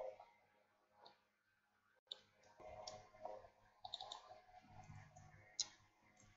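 Faint, scattered clicks of a computer keyboard being typed on while code is edited.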